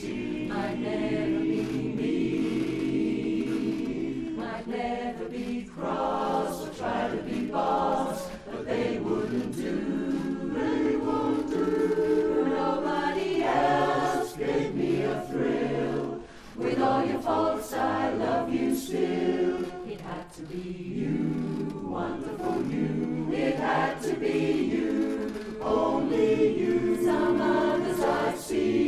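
Mixed barbershop chorus of men and women singing a cappella in close harmony, the voices running on without a break.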